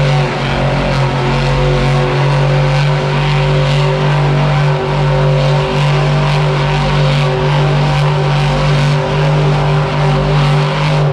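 Monster truck's supercharged V8 held at high, steady revs while the truck spins in place on the dirt, loud and unbroken with almost no change in pitch.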